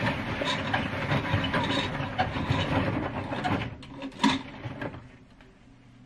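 Window blind being drawn by hand: a steady rattling, rustling run of the blind's mechanism and fabric, ending in a sharp click about four seconds in, after which it goes quiet.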